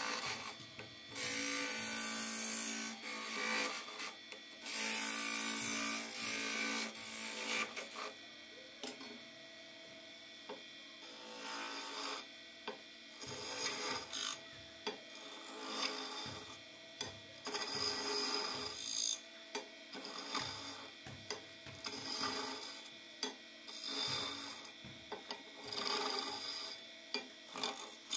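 Steel chisel cutting into a spinning wooden spindle on a wood lathe, carving captive rings free. Long continuous scraping cuts in the first several seconds, then shorter strokes with gaps, over the faint steady hum of the lathe.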